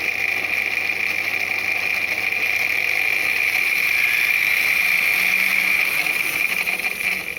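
Mixer grinder's motor running steadily at speed set by an SCR speed controller, a constant whine over a broad whirring noise, that cuts off sharply near the end.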